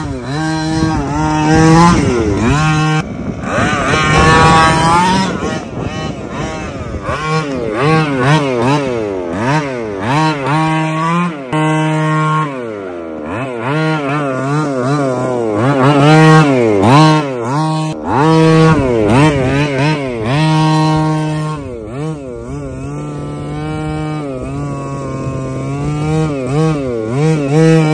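The 25cc petrol two-stroke engine of a large-scale RC truck, revving up and down over and over as the truck is driven. Between bursts of throttle it drops back to a steady lower note.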